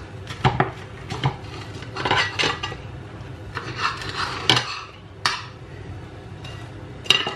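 Serrated knife sawing through a crisp toasted sandwich and scraping and clinking on a ceramic plate, in a series of short separate strokes and knocks.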